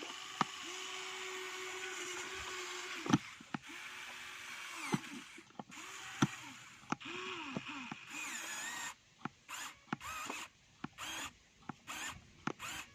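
A small motor whirs, its pitch dipping and rising several times, with sharp clicks and knocks in between. In the second half it runs in short stop-start bursts.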